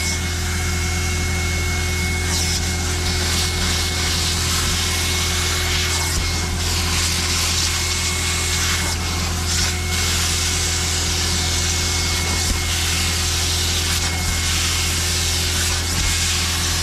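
Upholstery hot-water extractor running steadily: the vacuum motor drones with a constant whine while the wand hisses with spray and suction, the hiss swelling and fading with each stroke across a cloth car seat.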